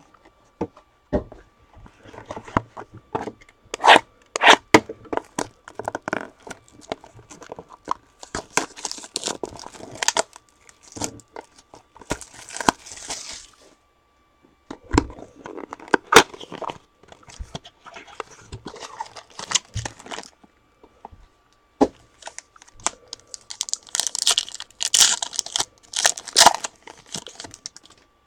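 Trading card packaging being torn open by hand: wrapping and card pack wrappers ripping and crinkling in short bursts, with scattered clicks and taps as boxes, packs and cards are handled.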